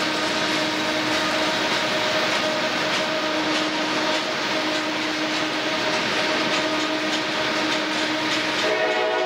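Freight cars of a slow-moving Norfolk Southern mixed freight train rolling past, steel wheels clicking over rail joints with a thin steady squeal. Near the end a train horn starts to sound.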